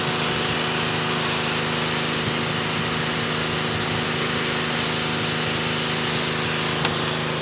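Pressure washer running steadily: an even engine drone with a dense hiss over it. A small click near the end.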